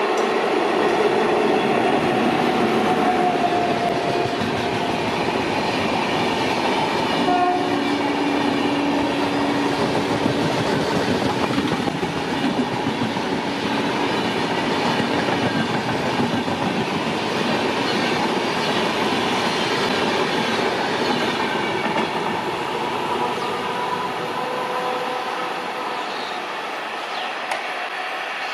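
Double-decker express coaches rolling past at speed, a continuous steady rush of wheels on rail with clicking over the rail joints, fading slightly as the last coach goes by near the end. About seven seconds in, a sharp click is followed by a steady tone lasting around three seconds.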